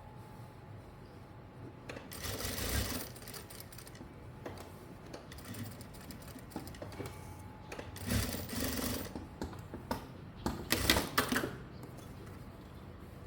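Sewing machine stitching in three short runs of about a second each, with light clicks between runs.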